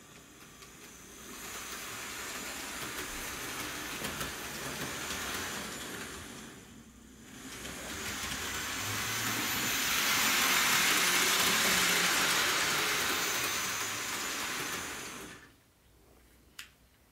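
Bachmann HO-scale Strike Force model train running on sectional track: the locomotive's small electric motor whirrs and the wheels rattle along the rails, rising and falling as the train rounds the oval, then cutting off suddenly as the train stops. A single sharp click follows near the end.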